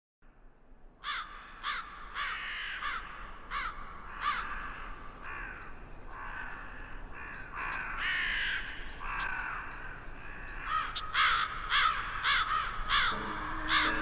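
A flock of birds calling over one another, short repeated calls starting about a second in and growing denser toward the end.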